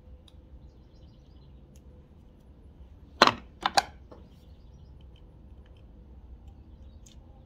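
Three sharp clicks about three seconds in, the first the loudest, over a faint low hum: handling knocks from a hand working a tube of silicone sealant right at the microphone.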